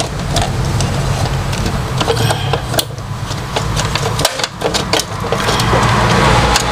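Steady noise of road traffic, vehicle engines running on a busy road, with a few small clicks and knocks from plastic printer parts being handled.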